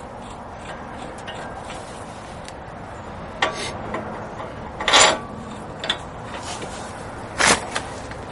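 Hand tools and bolts clinking and scraping against metal as the wheel hub assembly's mounting bolts are put in and tightened: a few sharp clanks, three louder ones spread over several seconds, between quieter rubbing.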